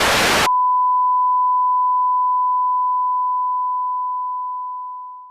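Half a second of loud static, then a steady single-pitch test tone of a broadcast that has gone off the air for technical difficulties. The tone holds for about five seconds and slowly fades near the end.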